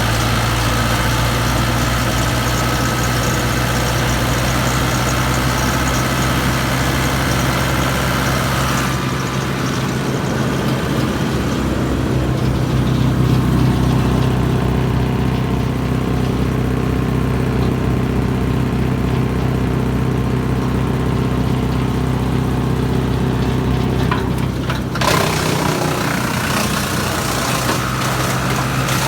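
Morbark 290 wood chipper's engine running steadily. Its sound changes about nine seconds in, and again sharply about twenty-five seconds in.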